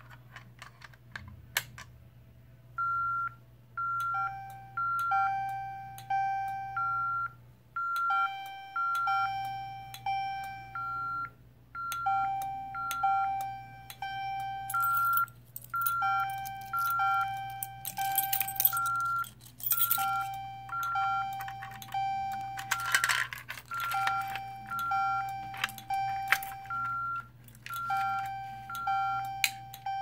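Mini fire alarm system going into alarm after the pull station is pulled: a lower tone sounds in the temporal-3 fire pattern, three tones then a pause, repeating about every four seconds, over quicker higher-pitched beeps from the panel's keypad. Clicks from the pull station handle come at the start, with mechanical clatter later on as it is handled.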